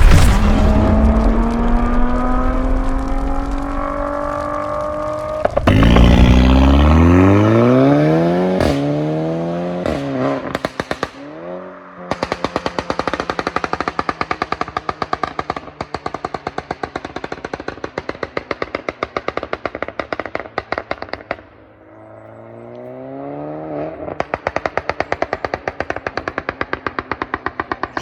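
Audi S3 8P's 2.0 TFSI turbocharged four-cylinder revving up twice, then on the overrun as the revs fall, a rapid, long string of exhaust crackles and pops from a deliberately extreme tuned overrun-crackle map. Near the end it revs once more and crackles again.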